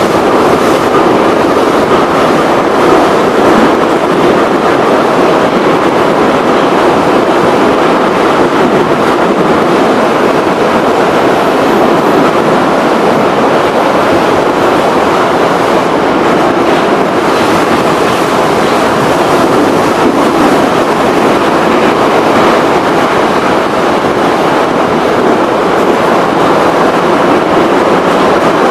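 Moscow Metro 81-717.5/714.5 subway car running between stations, heard from inside the car: a loud, steady rumble of the wheels on the rails and the running gear through the tunnel.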